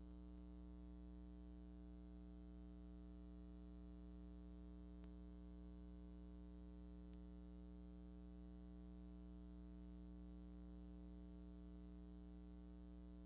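Near silence with a faint, steady hum, and two faint ticks about five and seven seconds in.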